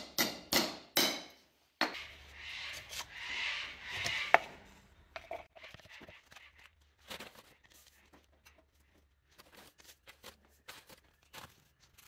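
A hammer knocks a few times in the first two seconds, driving a machined plug into the end of a stainless steel tube. Then comes a rushing, rustling stretch with one sharp click, and faint scattered ticks, as sand is poured into the tube through a plastic-bottle funnel. The tube is being packed with sand so that it won't flatten when it is bent.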